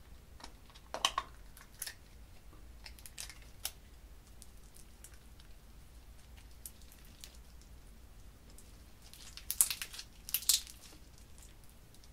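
Pink glitter slime squeezed out of a soft plastic container and pulled and squished by hand: a few short, sharp sticky squishes, the loudest two close together near the end.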